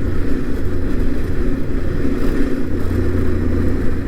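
Yamaha Ténéré 700's parallel-twin engine running at a steady cruise while riding, with a constant low hum under wind and road noise.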